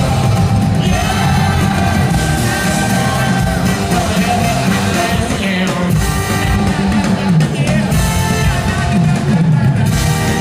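A rock band playing live in an arena, with a man singing lead over acoustic guitar, drums and bass, heard from among the crowd.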